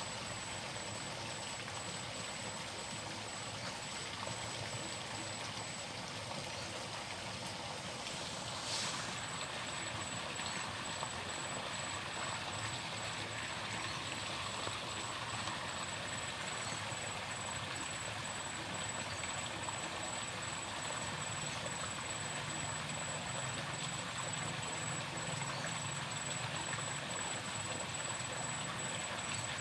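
Small stream flowing, a steady water hiss, with a single brief click about nine seconds in.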